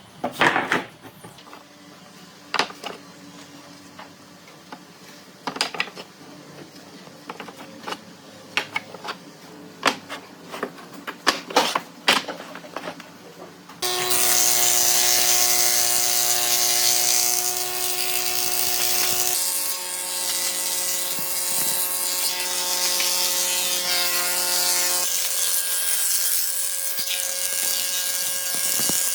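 Woodworking sounds: scattered knocks and clicks of wood and hand tools being handled, then, about halfway through, an electric power tool starts and runs steadily, its pitch shifting a couple of times.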